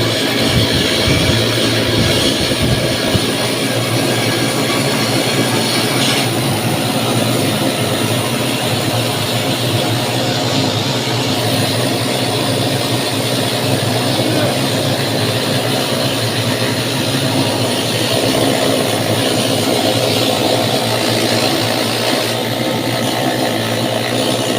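Loud, steady machinery drone with a low hum underneath, changing tone slightly a couple of times.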